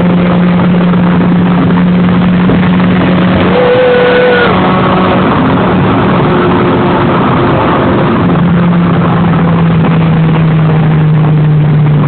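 An engine running loudly at a steady speed, its hum easing off for a few seconds in the middle, with a short higher tone about three and a half seconds in.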